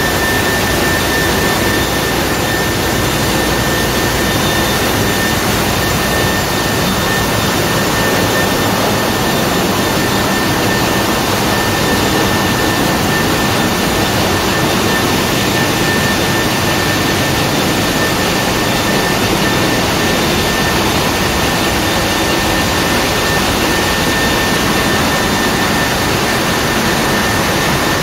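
Ship's engine-room machinery, with the main diesel engine running: a loud, steady mechanical din that does not change, with a thin, steady high tone over it.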